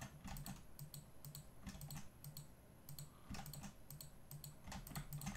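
Faint, irregular clicking of a computer mouse and keyboard as curves are picked and snapped in the 3D modelling software.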